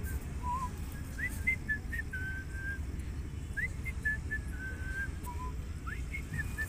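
Clear whistled notes in short repeated phrases, each a quick rising note, two or three short notes, then a longer held note, over a steady low rumble.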